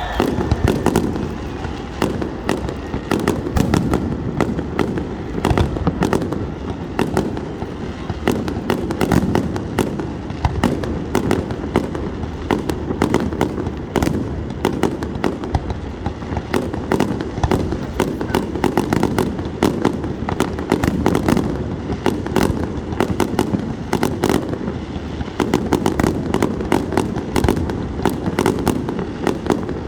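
Fireworks going off continuously: a dense, unbroken stream of sharp bangs and crackling pops over a steady low rumble.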